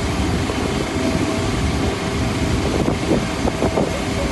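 A steady low rumble with a faint, steady high whine running through it, and a few light knocks in the second half.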